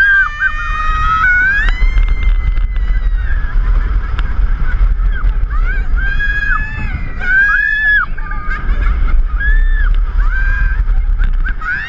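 Roller coaster riders screaming as the train drops and runs through the course. One long held scream rises early on, then a string of shorter rising-and-falling yells follows, all over a steady low rush of wind on the microphone.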